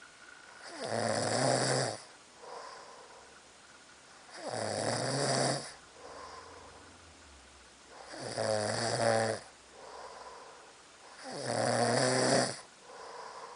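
A person snoring in a steady rhythm: four loud snores, one about every three and a half seconds, with a softer breath between each.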